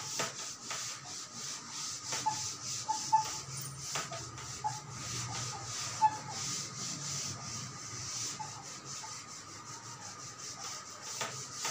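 Cloth duster wiping chalk writing off a blackboard: a run of repeated hissy rubbing strokes.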